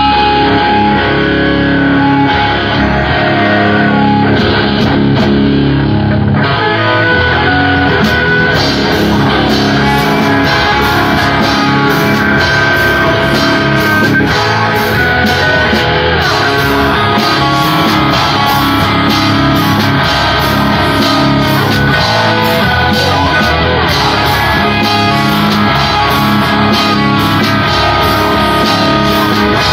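Live rock band playing loud, led by electric guitar, in a heavy-metal style.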